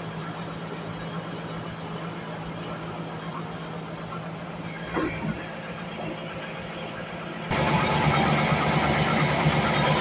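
An engine idling with a steady hum, a brief knock about five seconds in. After about seven and a half seconds a louder machine running sets in abruptly, the band sawmill at work.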